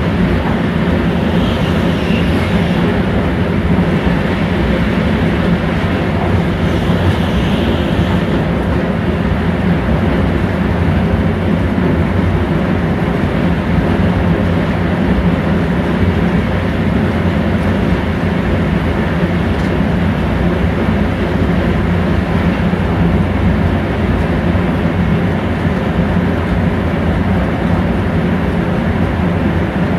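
Steady running noise of a moving train heard from inside an InterCity passenger coach: wheels rolling on the rails, with a constant low hum and no breaks.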